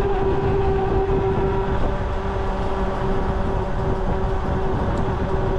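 Delfast electric bike's hub motor whining at one steady pitch while cruising, over road rumble and wind buffeting on the microphone.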